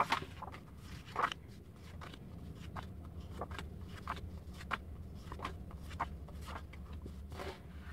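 Cardstock journaling cards being handled and laid down one after another on a cutting mat: scattered soft paper rustles and light taps, over a steady low hum.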